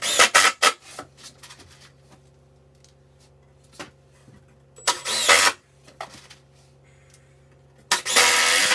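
Cordless driver sinking 2½-inch deck screws into 2x4 lumber. There are a few quick trigger pulls at the start, a half-second run about five seconds in, and a longer run near the end as a screw is driven home.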